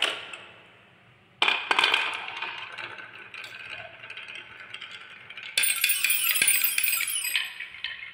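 Wooden balls rolling down a wavy wooden marble-run track, clattering in a quick run of clicks and knocks that starts about a second and a half in and slowly dies down. About five and a half seconds in comes a louder, brighter clatter with ringing notes as the balls run across a toy xylophone's metal bars.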